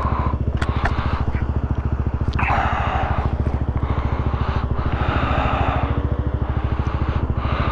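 Motorcycle engine idling steadily in neutral with an even, fast beat. Stretches of hiss come and go as traffic passes on the wet road.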